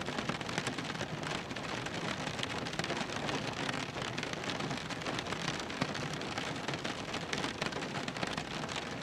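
Rain drumming on a car's roof and windows, heard from inside the cabin: a steady dense patter of many small drop hits.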